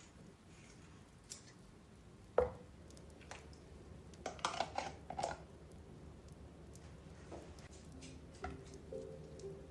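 Scattered knocks and clacks of household objects being handled, with one sharp knock that rings briefly about two and a half seconds in and a quick cluster of clacks around the five-second mark. Soft music begins near the end.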